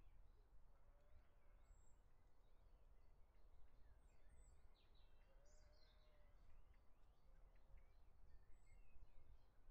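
Near silence: faint outdoor background with a low rumble and scattered faint bird chirps.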